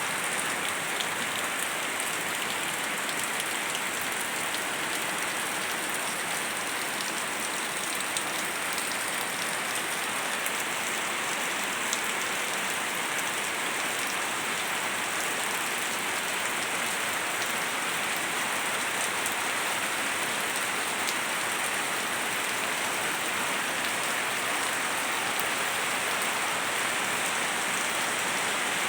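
Steady rain falling and pattering on surfaces, an even hiss with many small drop ticks.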